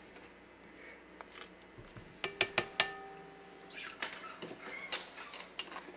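A metal kitchen utensil clinking against a bowl: four quick sharp clinks, each with a short ringing tone, a little over two seconds in, followed by softer clatter.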